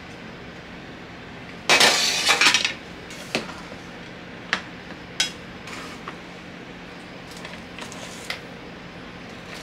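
Kitchen handling sounds as cooked rice is portioned from a rice-cooker pot with a plastic paddle onto plastic wrap. First comes about a second of crackly rustling. Then a few separate sharp clicks and clinks follow, one with a brief ring, over a faint steady hum.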